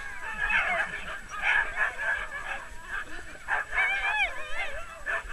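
A team of sled dogs yelping, barking and crying all at once, many high overlapping voices with rising and falling yelps.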